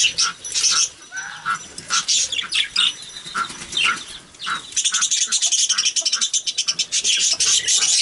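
A flock of budgerigars chattering and chirping. In the second half the chatter becomes a dense, fast run of high notes.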